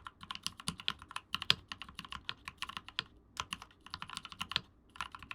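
Fast typing on lubed and filmed Gateron Silent Ink switches in a Rama Koyu keyboard with GMK keycaps: a quick run of dampened keystrokes, broken by two short pauses about three and four and a half seconds in.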